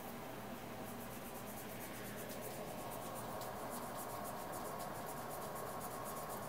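Rapid, even light clicking, about six clicks a second, starting about a second in, over a steady low hum.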